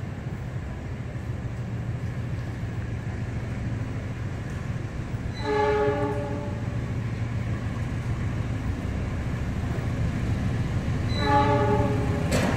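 A locomotive-hauled train approaching, its steady low rumble growing louder, and its horn sounding twice, a chord of several notes held for about a second and a half each: once about five seconds in and again near the end.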